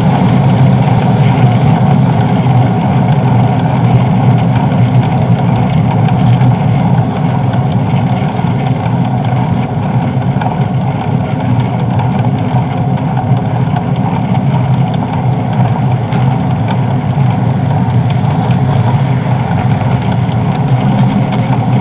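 Steady, loud rush of wind and road rumble from riding a bicycle at speed, heard on the bike-mounted camera's microphone.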